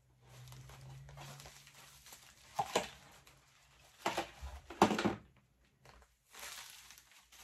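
Plastic mail bag rustling as it is handled and shaken upside down, with lipstick tubes and other small makeup cases tumbling out onto a table in a few sharp clatters, the loudest about five seconds in.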